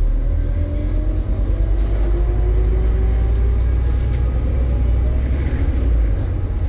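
Scania N230 bus's five-cylinder diesel engine running under load with a heavy low rumble, and a whine that rises slowly in pitch over the first few seconds as the bus gathers speed.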